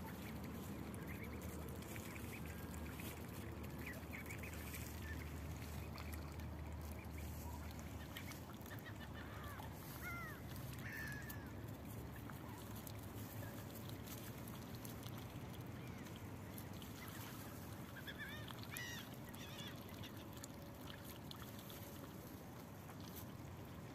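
Mallards calling softly: a few short, quiet calls in small clusters, over a steady low hum.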